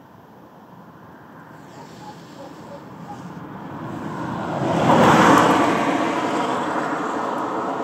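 A vehicle approaching and passing close by. Its rushing noise swells to a peak about five seconds in and then stays fairly loud.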